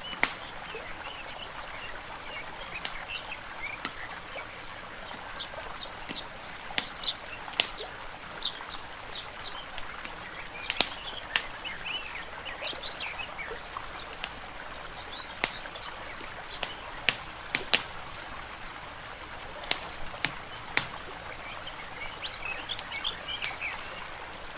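Wood fire crackling, with sharp irregular pops, while small birds chirp over a steady wash of water.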